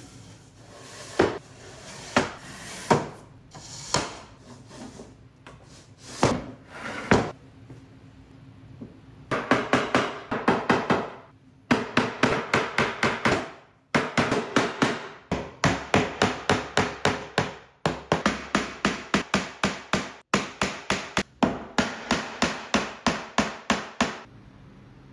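Hammer tapping on a walnut shelf frame during glue-up, seating the joints: a few separate knocks, then from about nine seconds in, long runs of quick light taps, about five a second.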